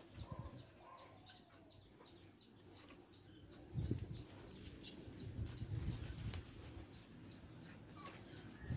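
Birds chirping in the background, many short, high, downward-slurred notes repeating several times a second. Low rumbling bursts of wind or handling noise on the phone's microphone from about four seconds in.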